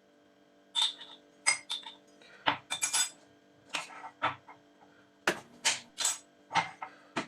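Irregular clinks and knocks of kitchen utensils, dishes and glassware being handled: about a dozen separate sharp strikes, the loudest cluster a little past five seconds in.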